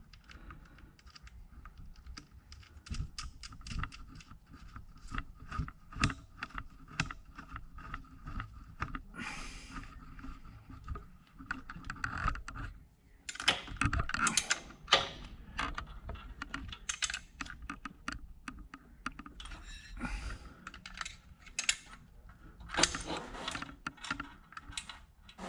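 Hand tools clicking and clattering on an alternator as nuts are tightened onto its wire terminal studs. There is a long run of quick small clicks, with louder handling clatter about halfway through and again later.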